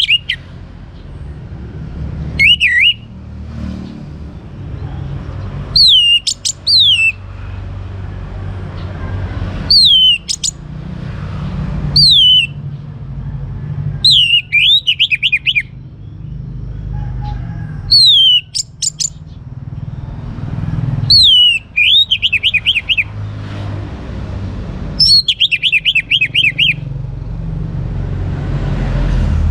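Young orange-headed thrush singing: short loud phrases every two to four seconds, each opening with a whistle that falls in pitch and often running on into a quick rattle of repeated notes. A steady low rumble runs underneath.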